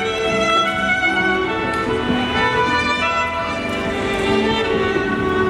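Gymnastics floor-exercise music: instrumental string music led by a violin, playing continuously.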